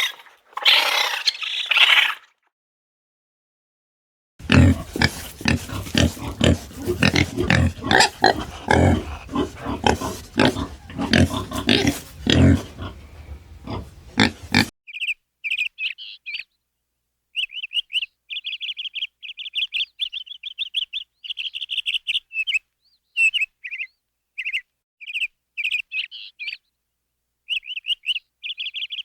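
Rough, rapid animal grunting for about ten seconds, then a small bird chirping in quick, high runs with short pauses.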